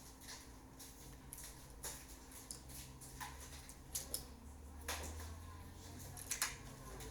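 Scattered small clicks, taps and scrapes of tools and parts being handled while working on a smartphone, over a steady low hum; the sharpest click comes a little past six seconds in.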